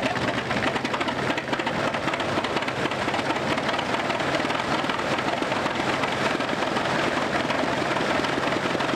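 Engine of an early C. L. Best 30 crawler tractor running steadily at idle, a low, even drone.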